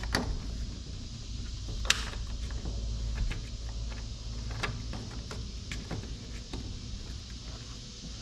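Scattered small clicks and taps of hands working the mini Jeep's ignition switch and its threaded retaining ring loose, the sharpest click about two seconds in, over a steady low rumble.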